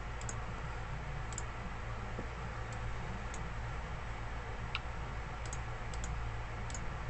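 Scattered computer mouse clicks, about nine at irregular intervals, over a steady low hum.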